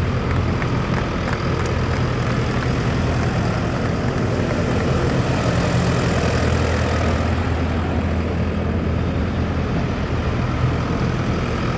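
ACE AX124 backhoe loader's diesel engine running steadily, with a low, even hum throughout.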